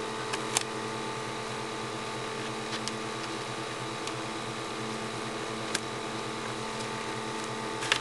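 Steady hum of a running electric room fan, with a few faint light clicks from handling transfer tape and vinyl.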